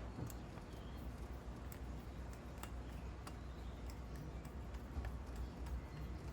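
Faint, scattered light clicks and taps of small carburettor parts and tools being handled during reassembly, over a low steady hum.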